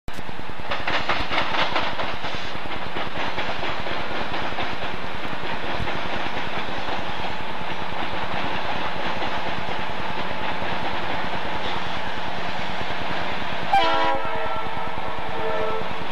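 Conrail diesel locomotives working a freight train past, engines running with the steady rumble of wheels on rail. About fourteen seconds in, the lead locomotive sounds its air horn, a chord of several notes held for about two seconds.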